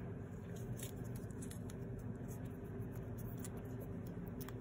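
Light handling of a smartwatch as fingers pick at the clear plastic protective film on its back: scattered faint ticks and rustles over a steady low hum.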